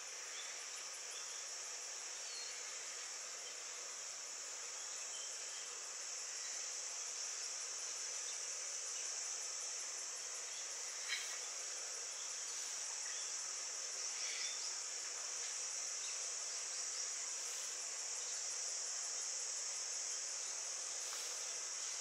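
Steady, high-pitched chorus of insects, with a small click about halfway through.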